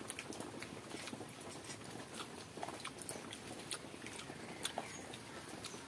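A person eating by hand: soft chewing and wet mouth clicks, irregular and close, over mouthfuls of watery fermented rice (pakhala) with mashed brinjal and omelette.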